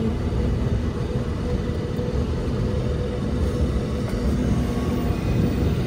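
Steady engine and road rumble of a tipper truck loaded with bricks, heard from inside the cab while it cruises.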